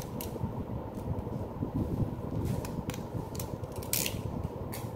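Scattered hard plastic clicks and light rubbing from a Zhiyun Smooth X gimbal stick being handled and turned over in the hands, the loudest click about four seconds in, over a steady low hum.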